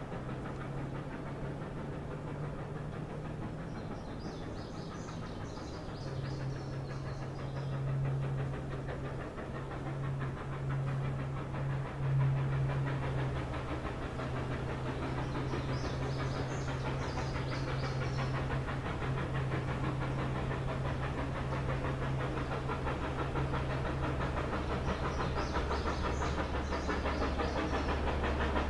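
Steam locomotive 734, a 2-8-0 Consolidation, working up the grade in the distance: a steady low drone with a hiss over it, growing slowly louder as it approaches. Birds chirp briefly three times.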